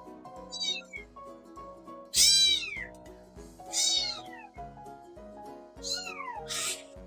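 A cat meowing four times, each call sliding down in pitch; the loudest is about two seconds in, and a short breathy sound follows the last meow near the end.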